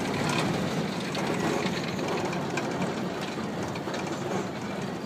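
Rack-railway railcar rolling along the track, heard from the driver's cab: a steady running noise with light clicking from the wheels and rails as it runs onto the rack section.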